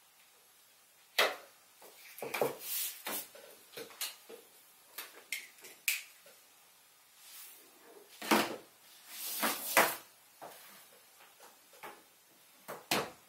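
Desk handling sounds: a utility knife trimming paper on a clipboard and desk tools being handled, heard as irregular sharp clicks, taps and short scrapes.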